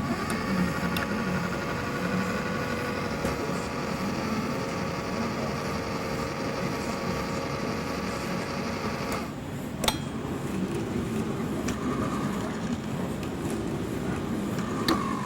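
Small electric motor of an exhibit alarm clock running with a steady hum for about nine seconds while the clock hand makes one turn, then stopping suddenly. A sharp click follows about half a second later.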